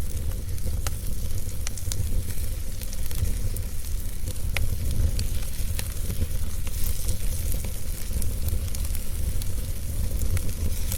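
Fire crackling: scattered sharp pops and snaps at irregular intervals over a steady low rumble.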